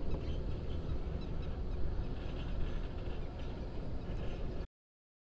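Outdoor ambience: a fluctuating low rumble with faint, scattered bird-like chirps, cutting off suddenly after about four and a half seconds.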